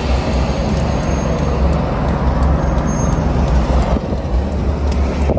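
Steady road and engine noise inside a moving car's cabin: a continuous low rumble with a hiss over it.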